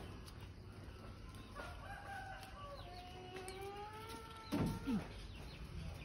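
A rooster crowing once in the background, a long drawn-out crow of about three seconds. Near the end come two short, louder sounds close by, each falling in pitch.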